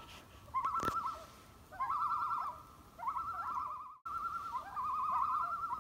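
Common loon tremolo calls: a quavering, wavering call about a second long, repeated over and over, each starting with a short rising slide. A sharp click comes near one second in, and the sound drops out briefly about four seconds in.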